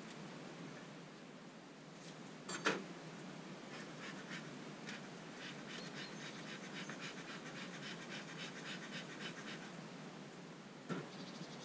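Bee smoker's bellows pumped in a quick series of short puffs. A sharp knock comes about two and a half seconds in, and a lighter one near the end.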